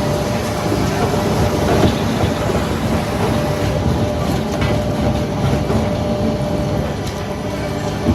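Heavy sawmill machinery running steadily: a dense, continuous clatter and rumble with a faint constant hum.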